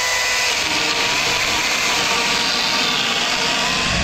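Echo DCS-2500T 56-volt battery chainsaw running with a steady electric-motor whine that wavers in pitch, its 12-inch bar chain cutting a 4x6 wooden post.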